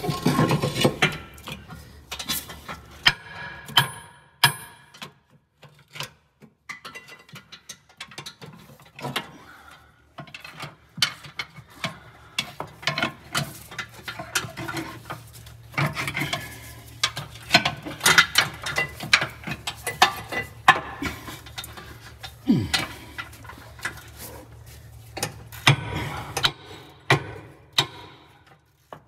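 Hand tools clicking, clanking and scraping on steel as a radius rod is worked off a bus's rear suspension: many irregular short knocks, with some ratchet-like clicking.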